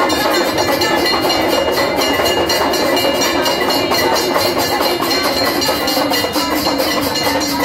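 Temple aarti bells and drums clanging continuously in a fast, steady beat, with bell tones ringing over the din.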